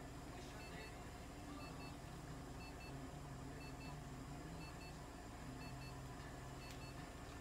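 Electronic device beeping in pairs of short high tones, about once a second, over a steady low hum of equipment.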